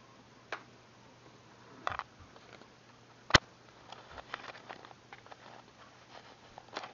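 Scattered plastic clicks and small ticks as a plastic pry tool works at the snap-on back cover of a tablet, with one sharp snap a little over three seconds in.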